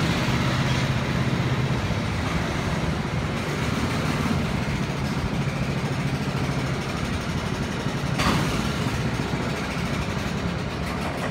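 Small gasoline engines of rental go-karts running, a steady engine hum whose pitch shifts up and down in steps, with a short rising sound about eight seconds in.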